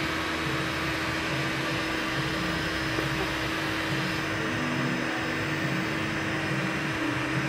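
Steady whirring hum of a running fan-driven machine: an even hiss with one constant low droning tone, unchanging throughout.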